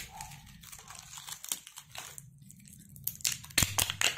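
Clear heat-shrunk plastic wrap crinkling and tearing as it is peeled by hand off a new CVT pulley face, with sharper, louder crackles from about three seconds in.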